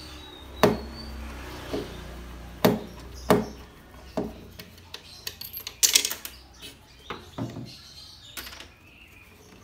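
Scattered sharp clicks and knocks of hand tools, small screws and hard plastic blender parts being handled on a workbench as the motor is unscrewed from the blender's base, with a quick cluster of clatter about six seconds in.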